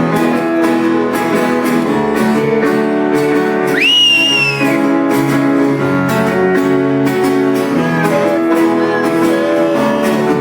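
Guitar-led rock band playing live, held chords strummed over steady drum hits in an instrumental stretch of the chorus. About four seconds in, a shrill whistle rises sharply and then falls away over the band.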